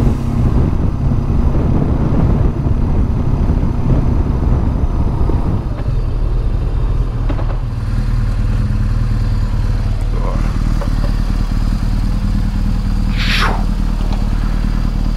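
2006 BMW R1200GS boxer-twin motorcycle engine running steadily, with a brief high-pitched sweep near the end.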